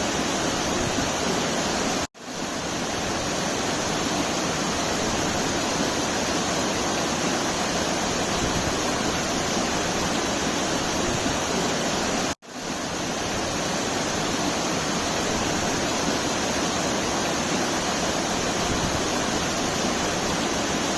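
Waterfall rushing in a steady, even roar of falling water. It cuts out abruptly twice, about two seconds in and again about twelve seconds in, fading back up within a second each time, like the joins of a looped recording.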